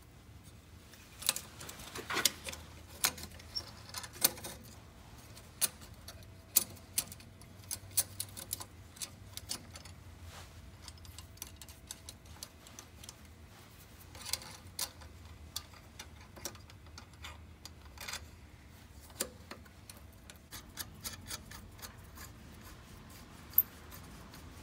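Light metallic clicks and clinks at irregular intervals as a steel hose clamp and its bolt are handled and fitted by hand around a charge-air pipe, over a faint low hum.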